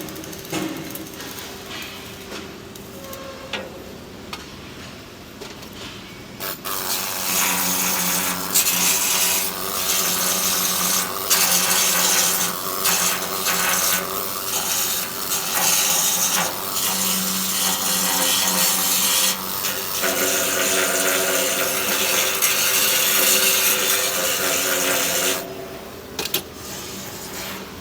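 Flux-cored arc welding on stainless steel: after a few seconds of quieter machine noise, the arc strikes and runs with a steady crackling hiss for about nineteen seconds, then stops near the end.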